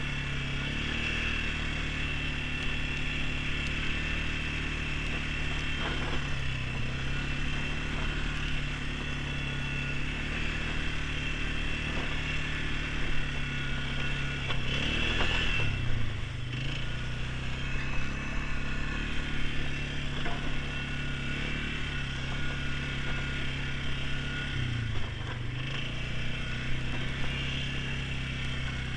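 ATV engine running while riding, with a steady high whine over it; the engine note dips and picks back up briefly about halfway through and again near the end as the throttle eases off.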